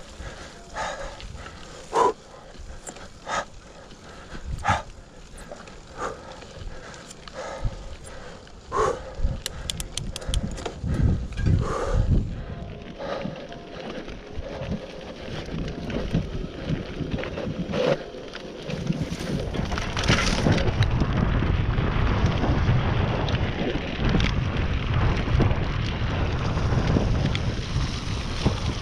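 Mountain bike ridden over a rough dirt trail, its frame and parts rattling with frequent sharp knocks and clicks. About two-thirds of the way in, a steady, louder rushing noise takes over.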